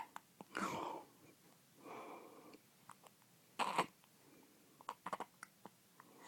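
Hiccups: two sharp hiccup bursts, one just over half a second in and one just before four seconds in, with a softer breath between and a few small clicks near the end.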